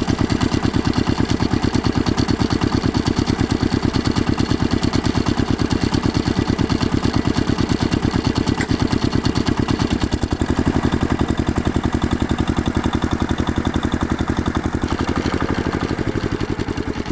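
Heavy-equipment diesel engine running steadily with a fast, even pulsing beat, getting quieter near the end.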